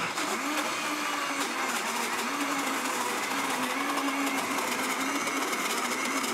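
Blendtec Designer 650 blender running steadily at speed, grinding peanuts into nut butter. Its motor hum wavers slightly in pitch.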